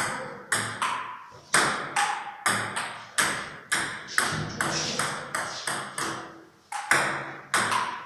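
Table tennis rally: the celluloid ball clicks off the table and the bats in quick alternation, two or three hits a second without a break, each click trailing off in the echo of a bare, hard-walled room.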